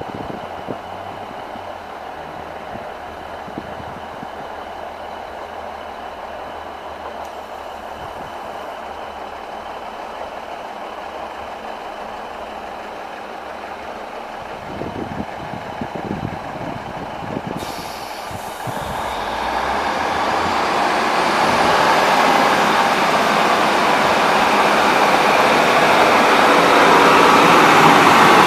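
Two coupled Class 156 diesel multiple units idling steadily, then a few low knocks about fifteen seconds in as they set off. The diesel engines and wheels then grow steadily louder as the train accelerates past.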